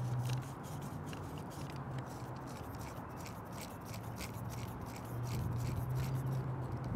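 Faint irregular clicks and light scraping of a Lapco FSR rifled paintball barrel being screwed by hand into a Dye DAM marker's threads. A low steady hum runs underneath and grows louder about five seconds in.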